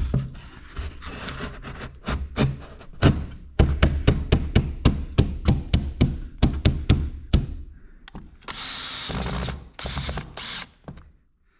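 Carpentry work with tools: a quick run of sharp knocks, about three or four a second, then a power drill running for about a second and a half, followed by a few shorter bursts.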